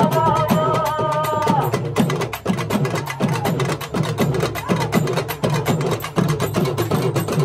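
Fast, loud drumming from a Tamil festival drum troupe on barrel drums, with dense sharp strokes. A held melodic note sounds over the drums for about the first second and a half, then stops.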